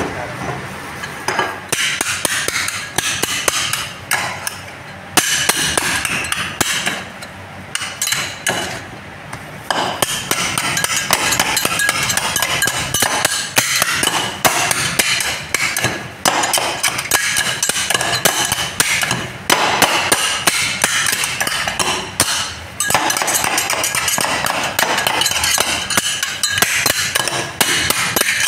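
Two steel spatulas rapidly chopping and scraping ice cream and toppings on a frozen metal cold plate, a fast clatter of metal striking metal that stops briefly a few times.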